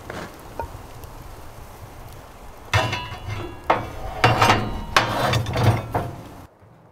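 A quick run of clattering knocks with a metallic ring, starting a little under halfway through and cutting off abruptly near the end.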